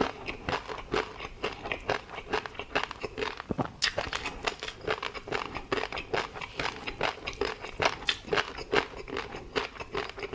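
Close-miked chewing of tobiko (flying fish roe): a dense, uneven run of small crunchy pops and clicks, several a second.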